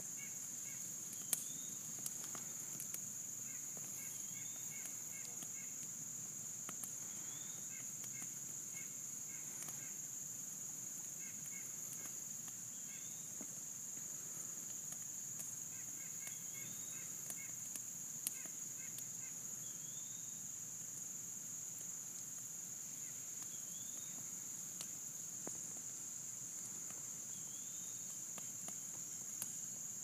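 Wood campfire popping now and then with sharp cracks, over a steady high-pitched drone of insects. A bird calls repeatedly with short rising notes every two or three seconds.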